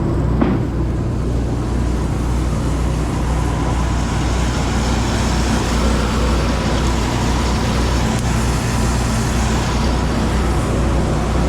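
Oliver 7300 combine running steadily while cutting wheat: a constant engine drone with the rushing noise of the threshing and cleaning works. A single brief click comes about half a second in.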